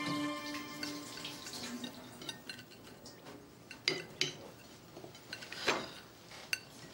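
Crockery and cutlery clinking on a table as food is put on plates: a few scattered sharp clinks and light knocks. A tail of background music fades out at the start.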